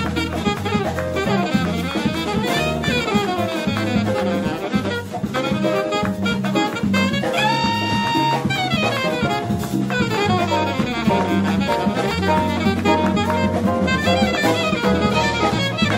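Live jazz: a saxophone solos in fast runs of notes, scooping up into one long held note about halfway through, over electric bass and a drum kit.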